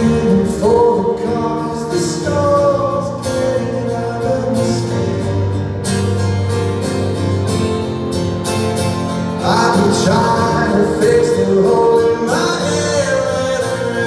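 Live acoustic performance: a male singer sings over a strummed acoustic guitar with keyboard accompaniment. It is heard from the audience in a reverberant theatre.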